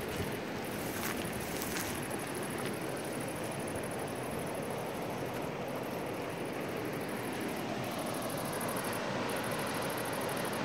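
Steady rushing of a fast-flowing river over rapids and riffles, an even, unbroken wash of water noise.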